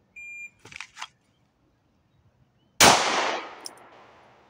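A shot timer beeps once to start, brief rustling follows as the pistol is drawn, and about 2.65 seconds after the beep a single shot from an Arex Delta 9mm pistol cracks and echoes away over a second or so.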